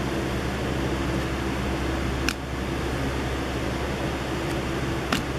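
Two sharp clicks, about two seconds and five seconds in, as trading cards are flipped by hand from the front of a stack to the back, over a steady background hum and hiss.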